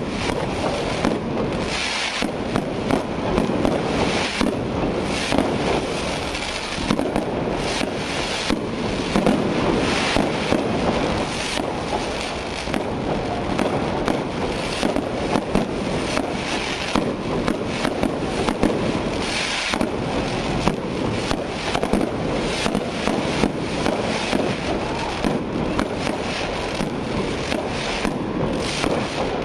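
Fireworks display: a constant barrage of bangs and crackling from aerial shells, several sharp reports a second.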